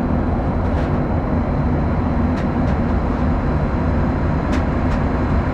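Steady, loud low rumble of a passenger jet's cabin noise.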